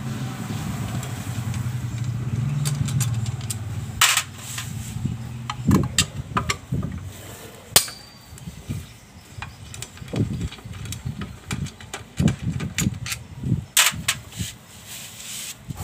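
Metal clicks and knocks from a hand tool working the bolts of a Yamaha Mio scooter's CVT cover, coming one at a time at irregular intervals. A steady low engine hum fills the first four seconds or so.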